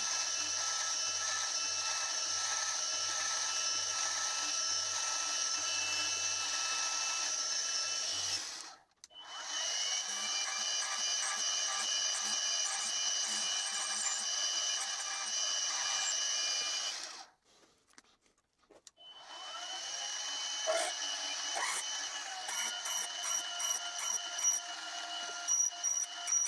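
Milling machine spindle running with a steady whine while a large twist drill bores into an aluminium bar. The sound cuts out twice, about a third and two-thirds of the way through, and near the end irregular ticks join the whine.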